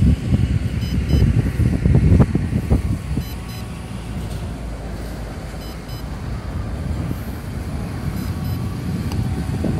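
Wind buffeting the microphone in irregular gusts, strongest in the first few seconds and steadier after. Short electronic double beeps sound three times, about a second, three and a half seconds and eight and a half seconds in.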